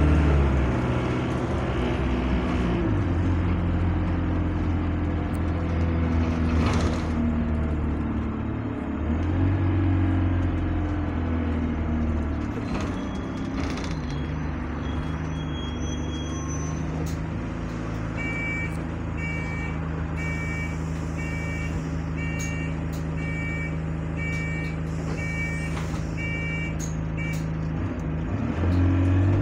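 Bus engine and drivetrain heard from inside the passenger saloon, a steady hum whose low note rises and falls as the bus pulls away and slows. About two-thirds of the way through, an electronic beep starts and repeats roughly once a second, about ten times, then stops.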